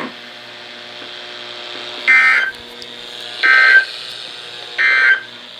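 Emergency Alert System end-of-message signal over weather radio: three short, identical bursts of warbling digital SAME data tones, each under half a second and about 1.3 s apart, marking the end of the severe thunderstorm warning. A faint radio hiss sits between the bursts.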